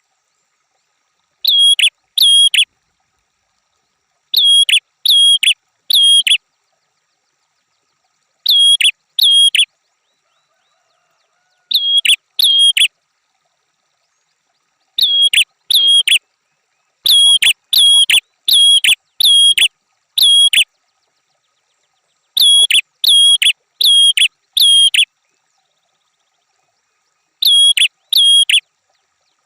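Red-headed prenjak (a prinia) calling: sharp, hooked chirps repeated in quick runs of two to six, with silent gaps of a second or more between the runs.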